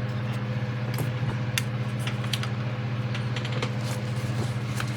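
A steady low hum with a few light clicks and taps, the sound of small plastic model parts being handled.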